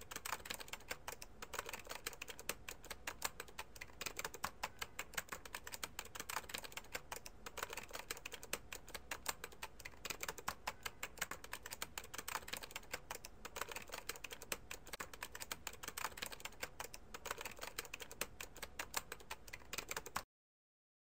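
Fast, continuous typing on a computer keyboard: a dense run of key clicks that stops abruptly near the end.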